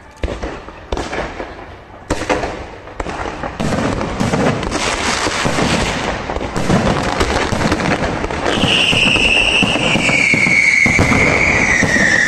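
Aerial fireworks display: a few separate bursts in the first few seconds, then a dense, growing run of bursts and crackling. From about two-thirds of the way through, a loud high whistle slowly falls in pitch over the crackle.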